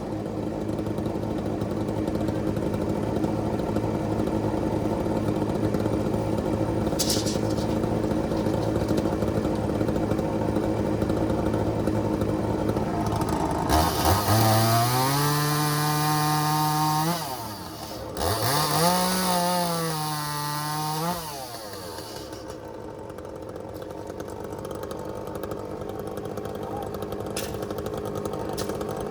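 An engine idles steadily, then a two-stroke Echo chainsaw revs up to full speed twice, about halfway through, each time for about three seconds, before dropping back to a lower idle.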